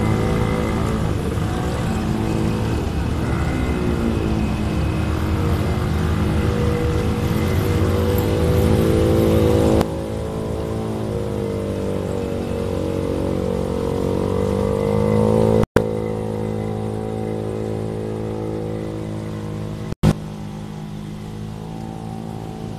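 Motorcycle engine running while riding through flood water, its pitch rising and falling with the throttle. The sound breaks off abruptly twice, about 16 and 20 seconds in.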